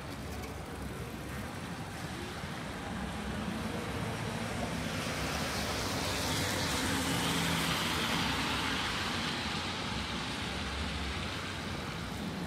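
A car driving past on a wet street: the tyre hiss swells over a few seconds, is loudest around the middle, then fades away, with a low engine hum under it.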